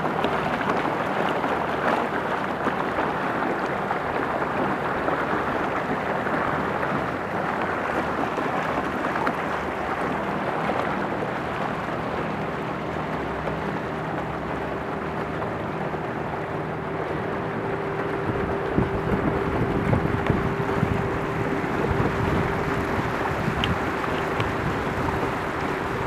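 Small boat's motor running steadily under way, with water rushing along the hull; its tone steps higher about halfway through. Wind buffets the microphone in gusts during the second half.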